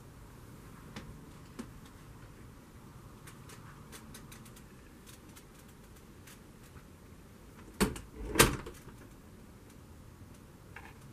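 Two sharp knocks a little over half a second apart, the second louder, over faint room tone with scattered small ticks.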